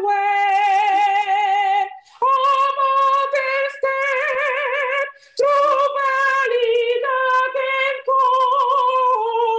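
A woman singing a slow hymn alone, unaccompanied, holding long notes with vibrato and pausing briefly for breath about two and five seconds in. The voice comes through a Zoom video call.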